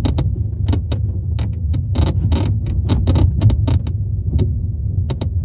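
Lada Vesta rear parcel shelf creaking sharply and irregularly, many short creaks in quick succession, over a steady low rumble of road noise in the cabin. The shelf is rubbing against the rear window glass as the car moves over bumps.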